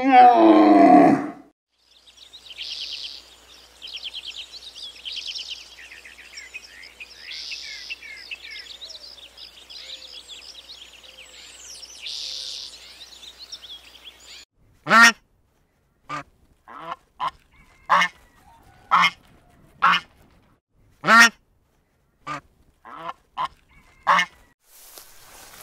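A loud animal call falling in pitch at the start, then faint high chirping of small birds, then a run of about fifteen short loud honking calls from waterfowl, roughly one every half second to a second.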